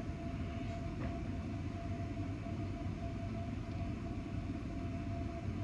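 Steady low mechanical hum, like an appliance or fan running, with a faint steady whine over it.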